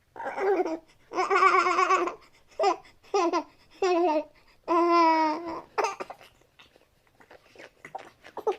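Baby-like cooing and babbling: a string of short high coos with two longer warbling ones, trailing off into fainter little sounds over the last couple of seconds.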